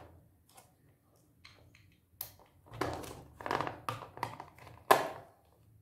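Plastic clicks and rattles as a battery pack is handled and pressed into the battery compartment of a toy RC car's plastic chassis, ending in a sharp knock about five seconds in.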